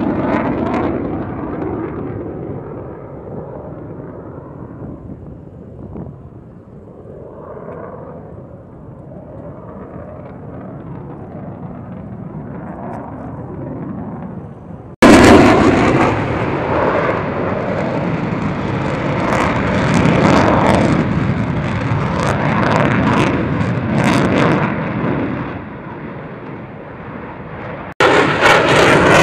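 F-22 Raptor's twin F119 afterburning turbofan engines: loud jet noise that fades away over the first half, then jumps back loud about halfway through and holds for about ten seconds before easing.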